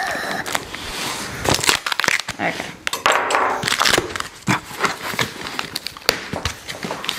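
A dull knife scraping and sawing through packing tape on a cardboard box. About three seconds in comes a rasp as tape tears and the cardboard flaps are pulled open, followed by paper packing crinkling and rustling.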